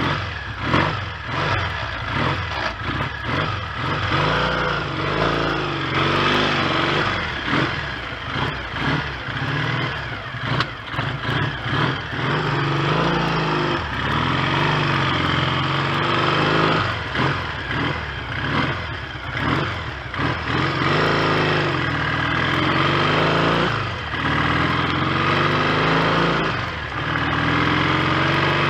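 1970 Triumph T100C 500 cc parallel-twin engine under way, pulling up through the revs and dropping back several times as it goes through the gears.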